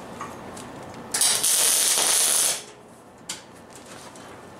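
A MIG welder laying a short tack weld: one burst of dense hiss about a second in, lasting about a second and a half and cutting off suddenly, followed by a single click.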